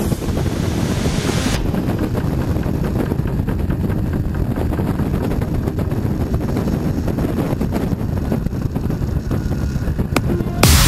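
On-board sound of a BMW R 1200 GS LC boxer-twin motorcycle ridden along at speed: wind rushing over the microphone mixed with the engine running. The high wind hiss is stronger for the first second or so, then eases.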